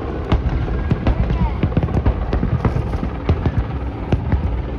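Aerial fireworks display: shells bursting in a rapid, irregular volley of sharp bangs and crackles over a continuous low rumble.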